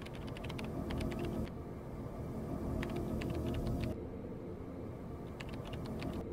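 Clicks of a smartphone keyboard as a message is typed: quick runs of taps in three short bursts, over a low steady background noise.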